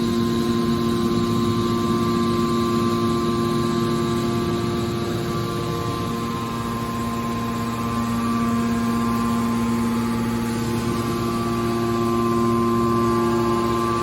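Hydraulic scrap metal baler running with a steady machine hum made of several held tones; the tones fade somewhat around the middle and come back strongly near the end.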